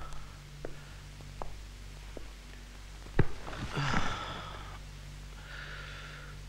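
A man's heavy, agitated breathing: a breathy groan just after a sharp knock about three seconds in, and another long sigh near the end. A few soft knocks come earlier, over a low steady room hum.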